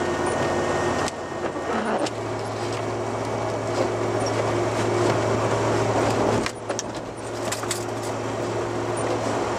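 Truck engine drone and tyre hiss on a wet, slushy road, heard from inside the cab. The engine note drops to a lower steady hum about two seconds in.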